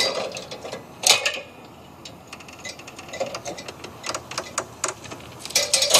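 Aluminium extension ladder clanking as someone climbs it: irregular knocks and light ticks, a sharper knock about a second in, and a longer noisy clatter near the end.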